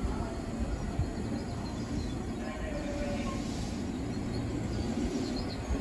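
JR West 221 series electric train pulling in along the platform: a steady low rumble of its wheels and running gear on the rails.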